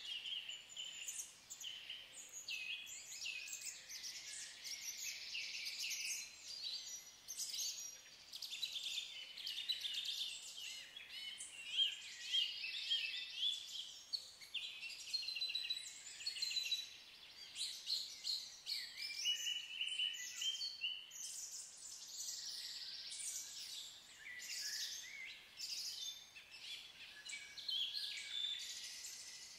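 Several songbirds singing at once in woodland: a dense, unbroken chorus of overlapping high chirps and song phrases.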